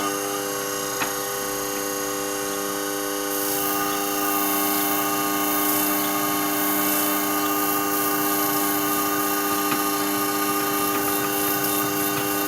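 Motor-driven flat hone running with a steady hum, its 9-micron abrasive plate spinning. About three seconds in, a high hiss joins as the convex scissor blade is ground against the plate.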